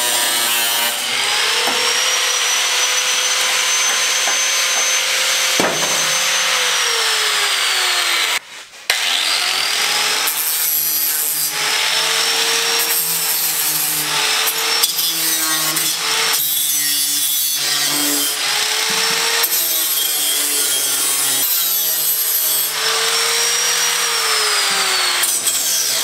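Electric angle grinder with a thin cutoff wheel cutting through rusty body sheet steel on a Datsun 510: a high motor whine over a harsh cutting noise. The pitch sags each time the wheel bites into the metal and rises again as it frees. It stops briefly about eight seconds in, then spins back up.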